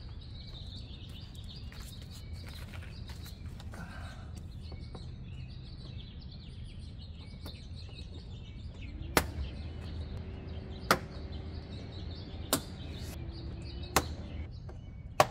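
Plastic push-pin retainers being pressed into the underside of a Subaru Outback's rear bumper cover, each snapping home with a sharp click. Five clicks come about a second and a half apart in the second half, after several seconds of only low background noise.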